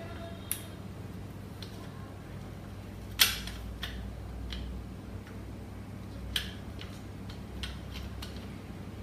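A few sharp clicks and knocks from a Magura hydraulic rim brake being handled and unlatched at its lock so the brake can come off, the loudest a single crisp click a little over three seconds in. A steady low hum runs underneath.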